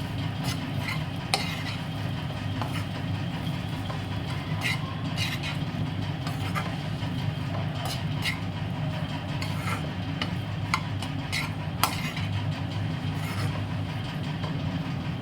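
A spoon stirring and mixing rice in a kadai, scraping and clicking against the pan at irregular intervals, over a steady low hum.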